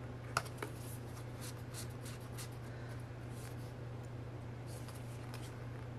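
Paper cards and printed goods being handled: two light clicks about half a second in, then a run of short scratchy rubs and slides of paper against paper and fingers.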